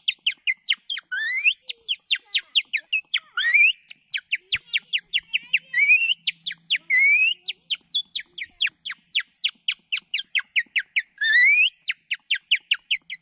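Birdsong imitated by whistling on a strip of thin tree bark: rapid trills of short chirps, about seven a second, broken by several long rising whistles, in a nightingale-like song.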